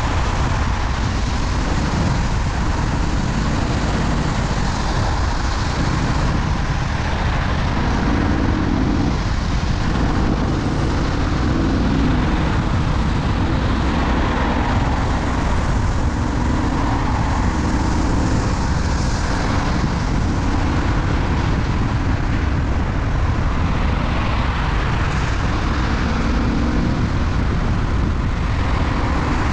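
Steady road vehicle noise with a deep continuous rumble, unbroken throughout.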